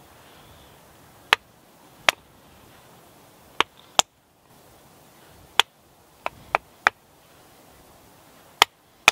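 Wooden mallet striking the spine of a bushcraft knife, batoning the blade through a small wooden peg on a chopping block to trim it down to size. About ten sharp knocks come at uneven intervals, some in quick pairs and threes.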